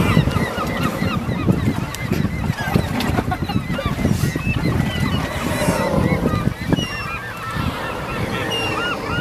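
A large flock of gulls calling, many short rising-and-falling cries overlapping without pause, over a low rumble.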